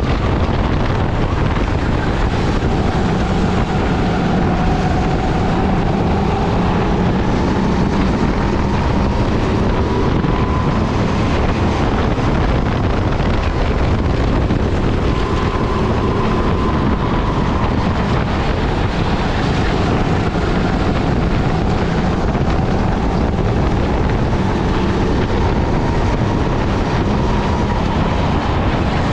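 Sodikart rental kart's four-stroke engine running at racing speed, heard onboard under heavy wind noise on the microphone; the engine note rises and falls gently with the corners.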